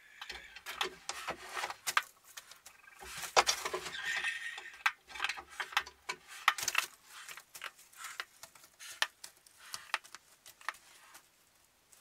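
Barn owl's talons scratching and scrabbling on the wooden nest box as it climbs in through the entrance hole and drops onto the wood-chip floor: a string of irregular clicks and scrapes.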